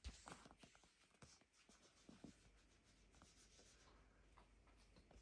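Near silence: room tone with a few faint, scattered soft taps.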